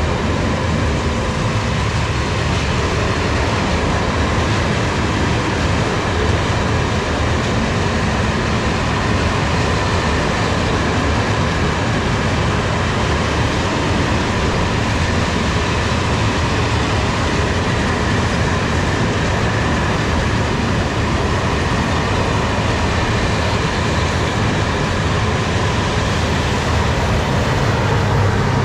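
A train running close by on the rails: a loud, steady rumble of wheels and wagons with a faint high ring over it. A deeper hum grows in near the end.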